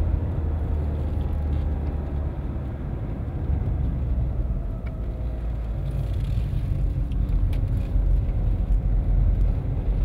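Steady low road rumble and engine noise of a car driving, heard from inside the cabin.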